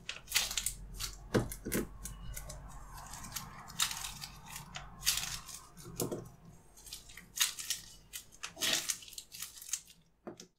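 Gloved hands squeezing and handling pieces of play dough: irregular crinkling and rustling of disposable gloves and squished dough, with a few soft knocks as pieces are set down on paper. The sounds stop about ten seconds in.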